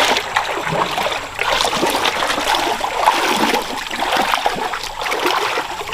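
Shallow water splashing and trickling as people wade through it, an irregular run of splashes.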